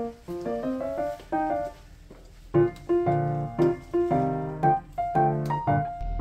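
Background music led by piano or keyboard: a light melody of single notes, turning to fuller chords about two and a half seconds in, with a deep bass entering at the very end.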